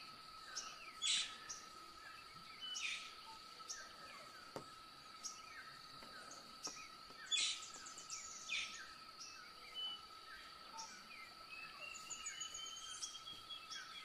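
Faint dawn chorus of forest birds: scattered short chirps and calls, and near the end a quick rising trill, over a steady high-pitched insect drone.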